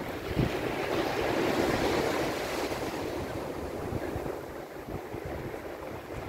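Sea surf breaking and washing over wet sand. A wash swells about two seconds in and then eases off, with wind buffeting the microphone.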